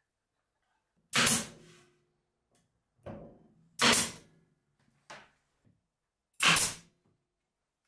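Pneumatic nail gun firing three nails into plywood, roughly two and a half seconds apart, with lighter knocks from handling the panels in between.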